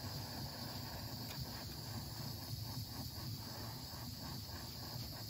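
Steady hiss of a lit Bernzomatic handheld torch flame, heating heat-shrink tubing on a battery cable.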